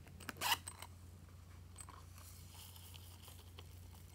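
Hard plastic seashell-shaped zipper case being handled: a sharp plastic click about half a second in, then a zipper-like scrape lasting about a second.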